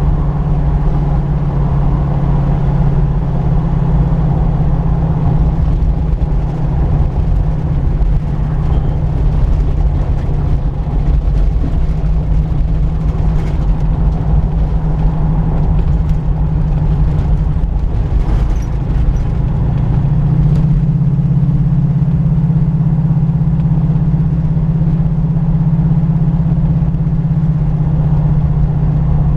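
Older car's engine running steadily under way, with tyre and wind noise; the engine note shifts slightly a couple of times as the speed changes.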